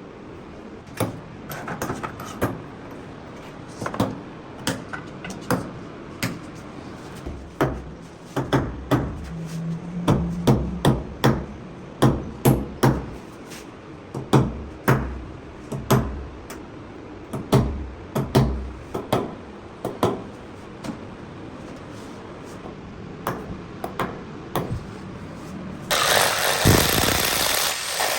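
A hammer striking again and again, sharp separate blows at an irregular pace of about one to two a second. Near the end a power tool starts and runs loudly.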